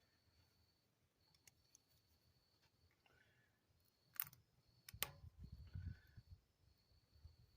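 Near silence broken by two sharp clicks about four and five seconds in, then a second of low rustling: hand-handling clicks while fitting a rubber fuel line and its clamp on a small mower engine.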